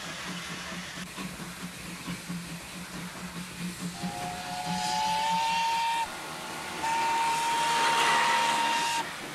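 Steam tram locomotive whistle blowing twice, each blast about two seconds long: the first about four seconds in with several notes sounding together, the second a single steady note near the end. Before the whistle there is a low rhythmic rumble of the tram running.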